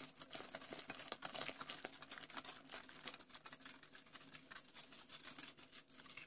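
Wire whisk beating milk into a cocoa, flour and sugar mix in a glass bowl: quick, faint clicking of the whisk against the glass.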